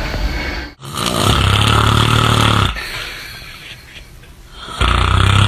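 Loud snoring from a sleeper: two long, deep snores, the first starting about a second in and lasting nearly two seconds, the second starting near the end, with a quieter breath between them.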